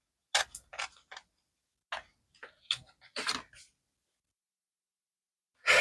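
A scatter of light clicks and taps, ending in a short rustle about three seconds in, as handmade paper-covered paper clips are slid onto the pages of a paper junk journal.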